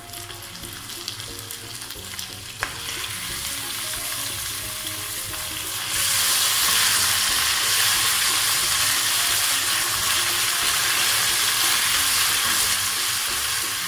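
Raw beef mince sizzling in hot oil with browned onions in a pot, stirred and broken up with a spatula. The sizzling gets louder about six seconds in and stays loud.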